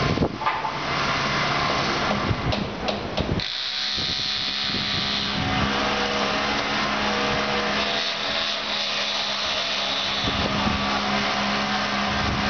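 R160A-2 subway train running on elevated track: rumbling wheel-on-rail noise with a few clacks over rail joints, giving way after about three and a half seconds to a steadier hum with a high whine that comes in twice.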